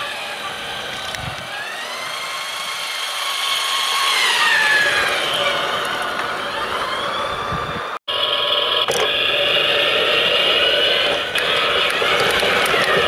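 Playmobil RC freight train locomotive's small electric motor and gearing whining as it runs on plastic track, its pitch rising and falling with speed. The sound breaks off for an instant about eight seconds in, then carries on steadier.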